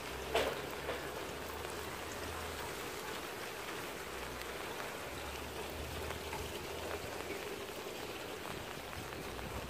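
Steady rain falling on asphalt and puddles, an even hiss, with one sharp tap about half a second in.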